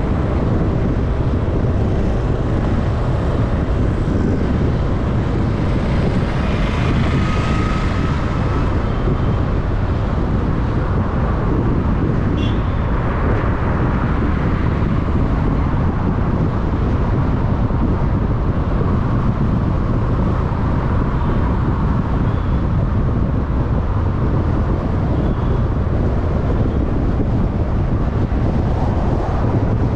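Steady road noise of a car driving on a city road: a deep, even tyre-and-wind rumble that grows brighter and hissier for a couple of seconds about seven seconds in. Faint short high chirps come about twelve seconds in and near the end.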